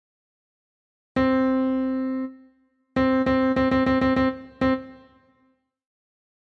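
Piano-style keyboard tone playing a rhythm on one repeated note: a long half note, a rest, two eighth notes, four quick sixteenths, a sixteenth, a short gap and a final sixteenth. This is the 6/4 counting example played back in time.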